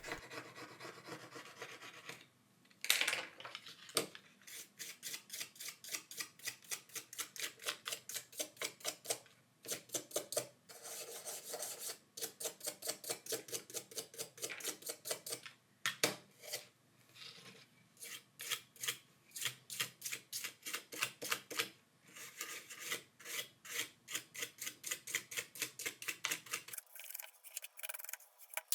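A tool scraping old adhesive and glass shards from a plastic phone frame, in quick repeated strokes of several a second, stopping briefly a few times.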